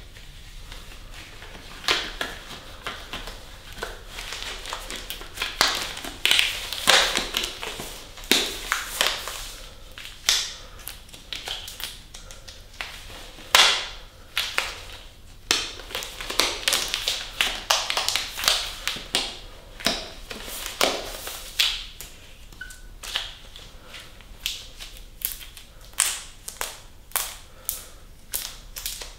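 Latex surgical gloves being pulled on over a second pair (double gloving): rubber rubbing and stretching against rubber, with many short sharp snaps and rustles as the fingers and cuffs are worked into place.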